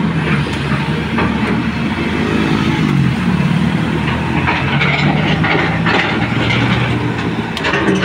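Hyundai Robex 220LC crawler excavator's diesel engine running steadily, its pitch wavering briefly a few seconds in, with scattered clanks and clicks near the end.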